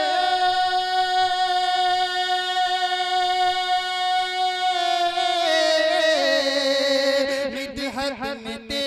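A man singing a naat unaccompanied into a microphone. He holds one long note for about five seconds, then steps down in pitch twice and moves into quick ornamented runs near the end.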